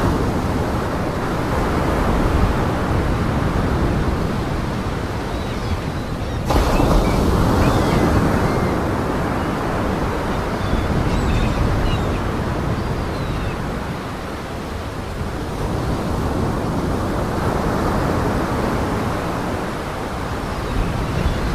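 Heavy Lake Michigan surf pounding the shore in gale-force wind, with wind buffeting the microphone. The sound jumps abruptly louder about six seconds in.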